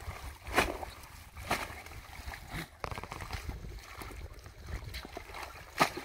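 Water sloshing and splashing as hands pull through a floating mat of water hyacinth, with a few sharp splashes; the loudest comes near the end.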